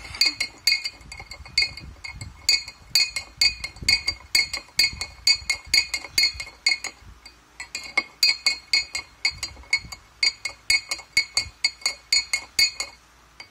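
Metal spoon stirring inside a glass jar of juice, clinking against the glass about four times a second with a brief ringing after each clink, as a little sugar is stirred in. The stirring pauses briefly a little past halfway, then resumes.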